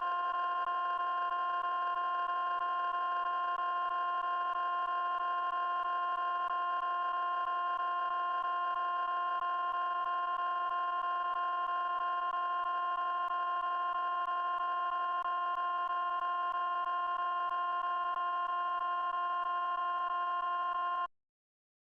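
A steady electronic sound-effect tone, one unchanging pitch with a bright stack of overtones, held without a break and cut off abruptly near the end.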